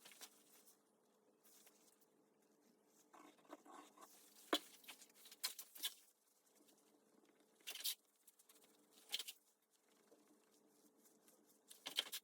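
Faint, scattered handling sounds: short light clicks and rustles every second or two, one sharper click about four and a half seconds in, with near silence between.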